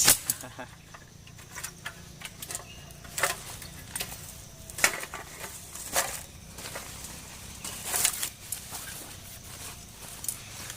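Irregular short knocks and rustles, one every second or two, over faint outdoor background.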